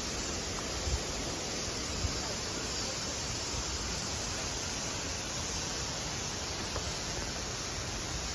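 Steady, even outdoor background hiss with no distinct events, broken by a few soft low bumps in the first couple of seconds.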